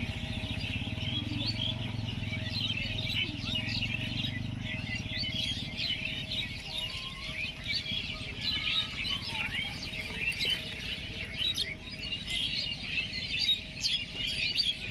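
Many small birds chirping at once, a dense stream of quick, high short notes, over a steady low rumble.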